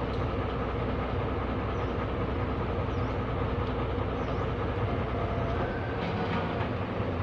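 D20E diesel-electric locomotive running, its diesel engine giving a steady, even noise with a constant hum in it. The deepest part of the sound thins out about six seconds in.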